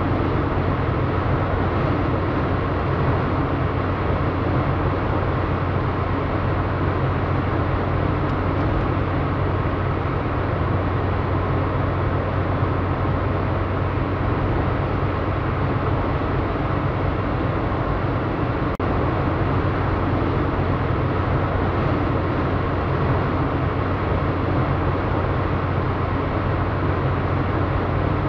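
Steady road noise of a car driving at highway speed: tyre and wind noise over a low, even hum, unchanging throughout.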